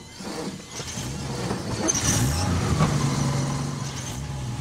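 Vehicle engine catching on a push start as the clutch is popped. Its pitch rises for about a second, then it keeps running steadily.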